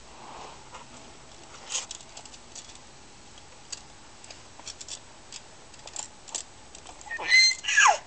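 Scattered light clicks and rattles of a baby's ring of plastic toy keys being handled, one a little louder about two seconds in. Near the end the baby gives a loud squealing cry that slides down in pitch.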